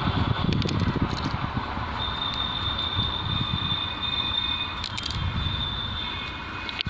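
Coins clinking against each other, in two short clusters of metallic clicks with a high ring, about half a second in and again about five seconds in. Under them runs a low rumble, and a thin steady high tone sounds from about two seconds in.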